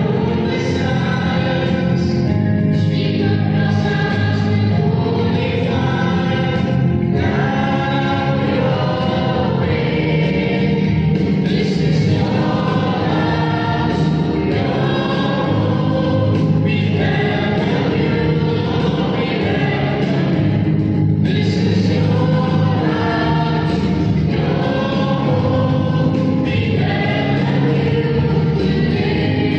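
A choir singing a hymn together over a steady sustained accompaniment, in phrases of one to two seconds.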